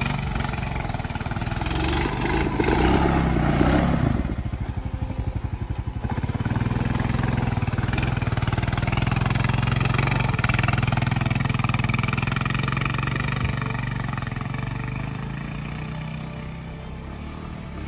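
A Honda Rubicon 520 ATV's single-cylinder engine running under load as it climbs a steep dirt hill. The revs rise over the first few seconds, then hold steady, and the sound fades near the end as the ATV pulls away up the slope.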